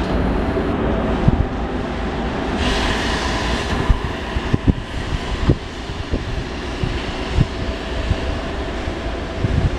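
A pair of coupled FS Class E655 and E656 'Caimano' electric locomotives running light at low speed with a steady running hum. Sharp clacks come at irregular spacing from about a second in, as the wheels cross rail joints and points.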